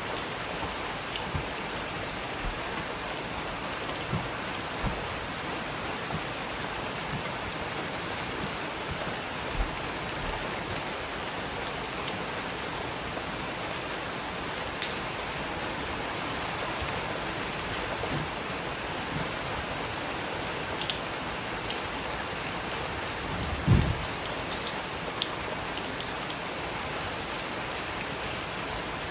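Steady rain falling, with scattered small crackles from a fireplace and a few soft low thumps, the strongest a few seconds before the end.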